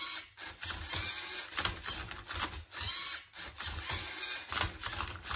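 LEGO Mindstorms EV3 MindCuber robot turning and flipping a Rubik's Cube: its motors whir in a string of short runs, each under about a second, with sharp plastic clacks between the moves.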